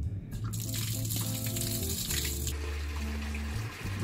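Water from an outdoor wall tap pouring into a brick basin, the rush starting about half a second in and easing somewhat past the middle, over background music.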